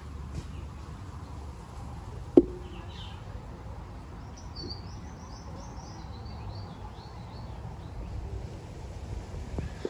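A bird singing a string of quick high chirps for a few seconds over a low steady background rumble. A single sharp knock, the loudest sound, comes about two and a half seconds in.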